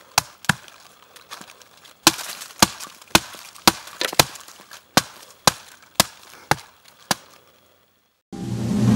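Sharp chopping knocks at an even pace of about two a second, with a pause of about a second and a half early on; they stop about seven seconds in. Music starts shortly before the end.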